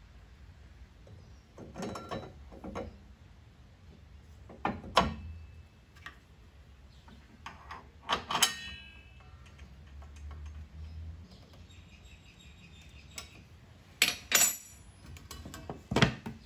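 Table saw blade change: a steel 24-tooth rip blade, its flange washer and arbor nut clinking and clanking against the saw's cast-iron table and arbor as they are fitted. A handful of separate metal knocks, one about eight seconds in ringing briefly.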